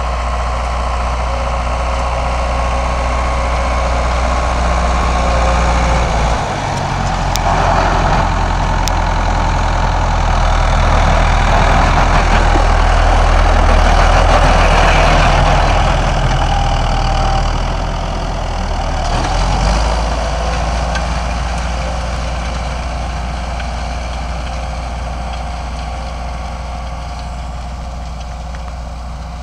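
Ford farm tractor's diesel engine running steadily under load while pulling a Monosem precision planter. It grows louder as the tractor passes close by about halfway through, then fades as it moves away.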